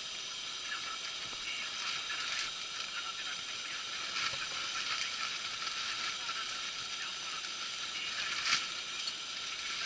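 Steady hiss, with a few faint clicks about two and a half seconds in and near the end.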